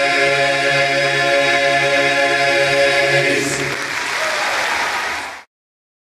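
Men's barbershop chorus singing a held a cappella chord that ends about three seconds in, followed by audience applause. The sound cuts off suddenly shortly before the end.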